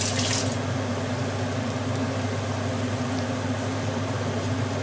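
Onion and white wine sizzling in a frying pan as the wine cooks off its alcohol: a steady hiss, louder briefly at the start, over a constant low hum.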